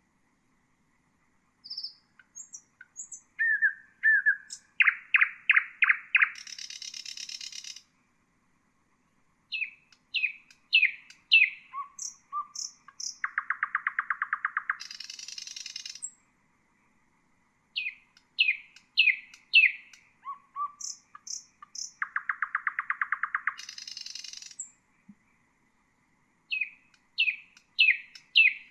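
Common nightingale singing in separate phrases with short pauses between them. The phrases mix runs of sharp down-slurred notes, fast rattling trills of one repeated note, and brief high whistles.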